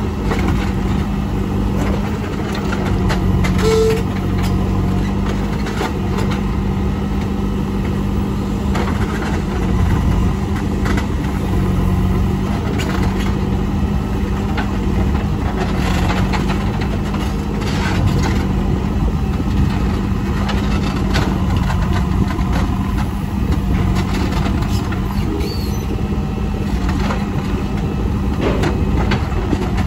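JCB 3CX backhoe loader's diesel engine running steadily as the machine works, with scattered short knocks and clanks.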